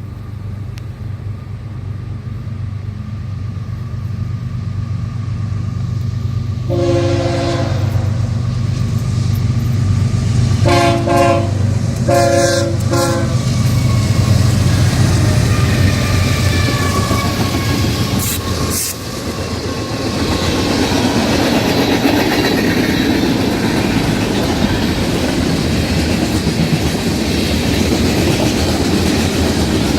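CSX freight train led by a GE ES40DC diesel locomotive approaching and passing, its engine drone building steadily. A Nathan K5HL air horn sounds one long blast about seven seconds in and two shorter blasts around eleven and twelve seconds. From about nineteen seconds the locomotives and cars go by with continuous wheel and rail noise.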